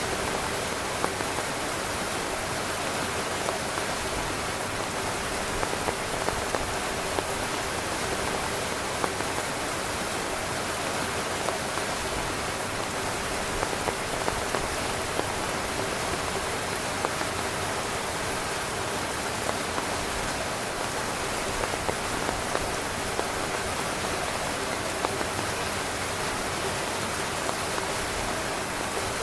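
Heavy rain falling steadily on a tent, a constant hiss with many individual drop ticks on the fabric.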